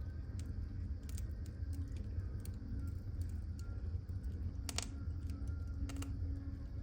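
Wood fire burning in a fireplace: scattered crackles and pops over a low, steady rumble, with two louder pops about two-thirds of the way through and near the end.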